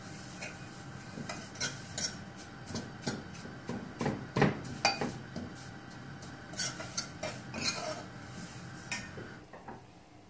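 Metal ladle scraping and clinking against a metal saucepan as vermicelli is stirred continuously while it roasts in ghee, so it does not burn. Irregular knocks and scrapes that die down near the end.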